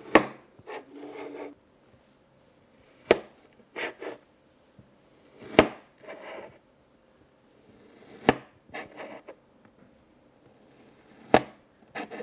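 Kinetic sand being chopped with a tool on a tabletop: five sharp taps about every three seconds, each followed by a short, soft scraping rustle.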